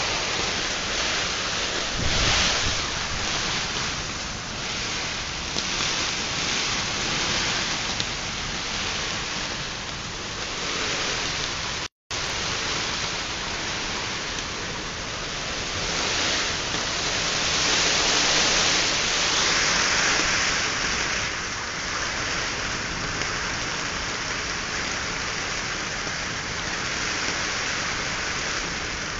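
Heavy rain pouring down in a kalbaishakhi (nor'wester) storm: a steady rush of rain that swells louder about two-thirds of the way through. The sound cuts out for an instant midway.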